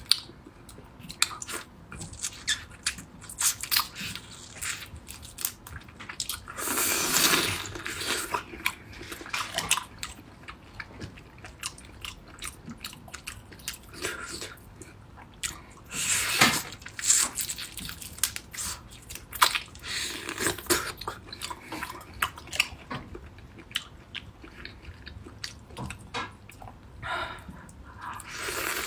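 Close-miked chewing and biting of raw marinated prawns: wet smacking mouth sounds with crisp crunchy bites. There are several louder stretches of eating spread through it.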